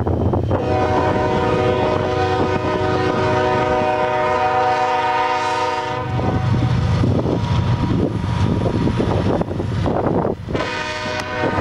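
Locomotive air horn sounding a long chord for about five seconds over the rumble of a passing train, then sounding again near the end.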